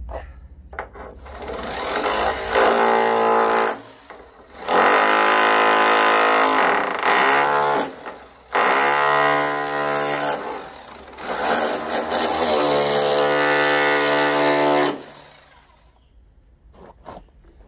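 Corded drill fitted with a flat chisel bit, chiselling rusted metal off a VW T25's lower sliding-door rail. It runs in several bursts of a few seconds each, the whine rising as each one starts.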